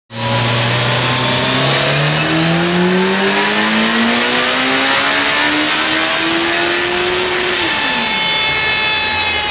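Kawasaki ZX-14R's 1441 cc inline-four, on its stock exhaust, making a full-throttle pull on a chassis dyno: the engine note climbs steadily for about seven and a half seconds, then the throttle closes and the revs fall quickly. A high whine carries on as the revs drop.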